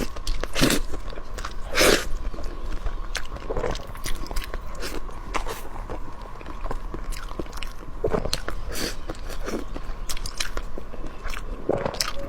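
Close-miked eating: a person biting and chewing food, with repeated short crunches scattered through the chewing.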